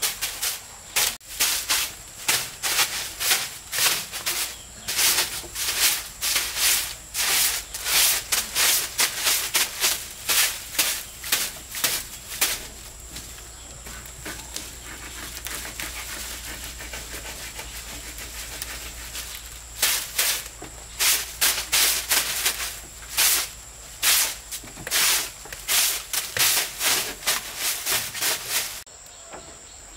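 Rhythmic scraping or rasping strokes, about two a second, softer for several seconds midway and stopping near the end. A steady high insect drone runs underneath.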